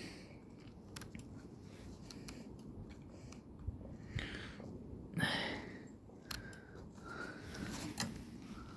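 Faint handling noises: scattered small clicks, with a short breathy sound about five seconds in.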